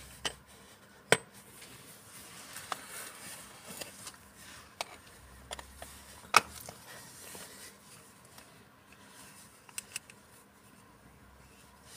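Clear plastic coin capsule handled in cotton gloves: scattered sharp clicks and taps, the loudest about a second in and about six seconds in, with soft rustling of the glove fabric against the capsule between them.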